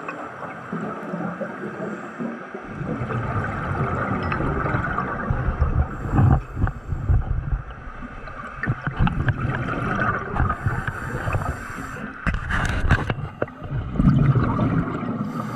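Water gurgling and bubbling with a low rumble, coming and going in irregular surges.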